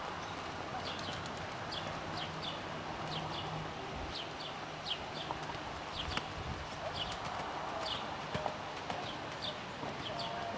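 Horse's hoofbeats at a canter on a sand arena, with short high chirps of small birds repeating throughout.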